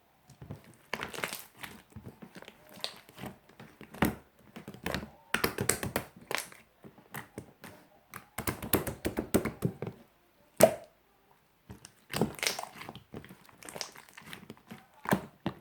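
Slime being squished and pressed by hand, giving a busy run of irregular clicks and crackles with short pauses, and one sharp pop about ten and a half seconds in.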